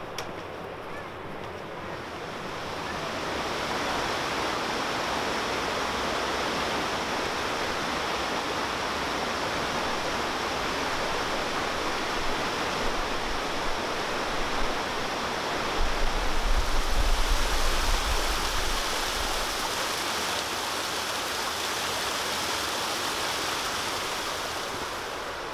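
Rushing water of a mountain stream cascading over rocks, a steady even noise that swells in over the first few seconds. A brief low rumble comes in about two-thirds of the way through.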